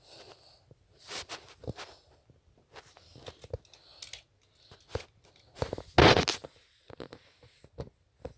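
Toy cars being moved and handled: irregular rustling, scraping and small clicks, with a louder rustling burst about six seconds in.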